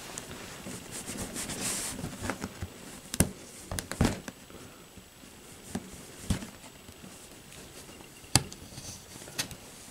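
Fingernail scratching and picking at the edge of a cardboard model-kit box to free a sealing security tab, with a few sharp clicks and taps scattered through.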